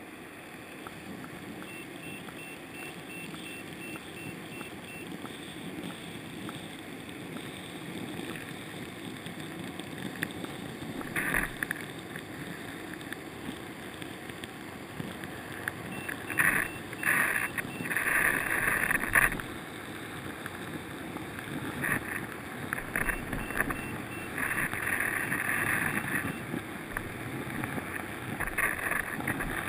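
Muffled underwater sound of lake water as picked up through a GoPro's sealed waterproof case on a crashed, submerged quadcopter: a steady dull wash of noise. Clusters of short, louder bursts of noise come about a third of the way in and several more times later.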